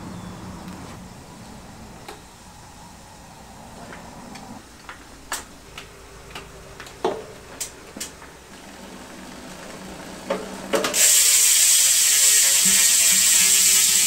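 A few light clicks and taps as a pedal is threaded onto a crank arm and tightened with a hex key. About eleven seconds in, a loud, fast ratcheting buzz from a bicycle freehub lasts about three seconds.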